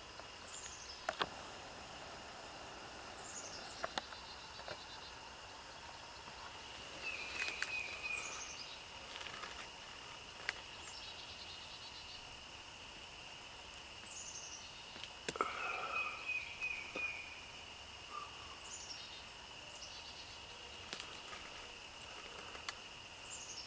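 Quiet outdoor ambience: a steady high insect drone, birds calling again and again with short notes that slide downward, and a few faint scattered clicks.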